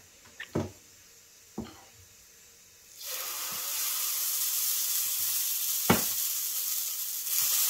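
A few light knocks, then about three seconds in a sudden steady sizzle begins as dosa batter is poured onto the hot dosa griddle and keeps frying. There is a single sharp click near six seconds.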